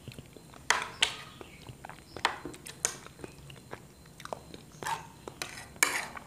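Close-up wet chewing and mouth smacking of a person eating soft chocolate pudding with vanilla custard, coming in irregular bursts.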